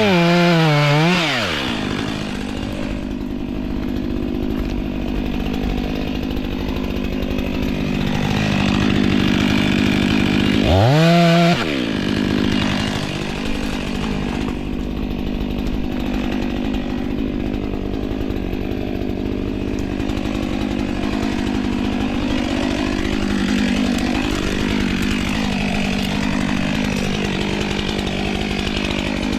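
Stihl MS 500i fuel-injected two-stroke chainsaw idling steadily, revved up and back down briefly twice: once at the start and again about eleven seconds in.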